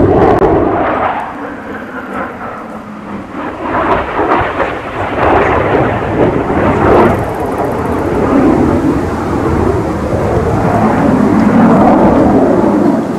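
Jet aircraft flying a display overhead: a loud, rumbling jet engine noise that dips about two seconds in, then builds and stays loud.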